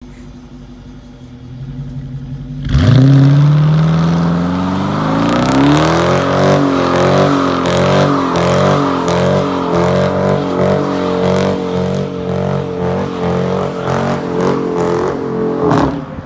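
2019 Dodge Charger R/T's 5.7-litre HEMI V8 idling, then about three seconds in the revs jump and the rear tyres break loose in a burnout. The engine note climbs for a few seconds, then holds high and wavers over the noise of the spinning tyres, and drops off sharply near the end.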